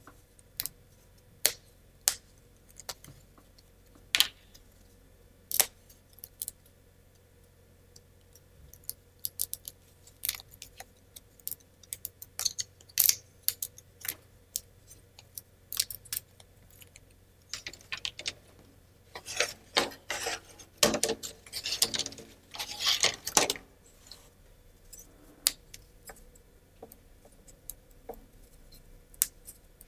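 Thin plywood model parts being pressed out of their laser-cut sheet: scattered sharp wooden clicks and small snaps as the tabs break, with a denser run of clicking and rattling about two-thirds of the way through.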